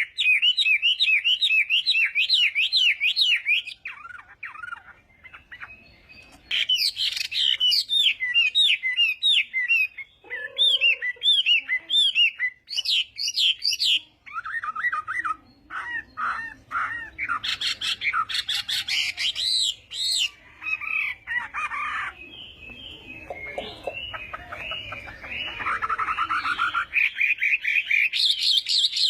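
Chinese hwamei (hoạ mi) singing a varied song of rapidly repeated whistled notes, changing to a new phrase every few seconds.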